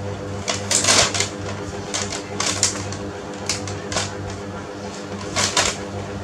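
Clear plastic sheet crinkling and crackling in irregular bursts as a macaque grabs and pushes at it, loudest about a second in. A steady low hum runs underneath.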